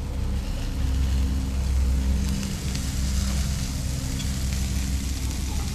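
Doves and gizzard skewers sizzling on a charcoal grill grate, a fine hiss that grows stronger about two seconds in, over a steady low hum from an engine running.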